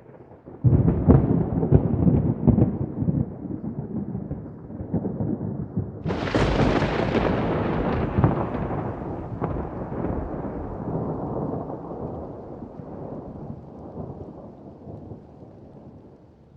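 Thunder: a peal of rumbling breaks in suddenly just under a second in, then about six seconds in a sharper, closer crack sets off a long rolling rumble that slowly fades away.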